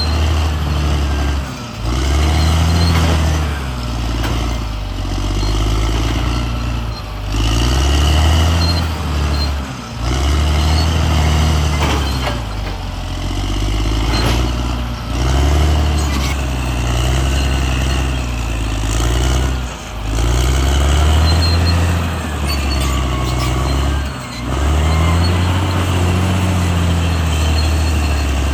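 CAT D6R XL bulldozer's diesel engine working under heavy load, its pitch rising and falling over and over every two to three seconds as the machine pushes and lifts, with short dips between the pulls.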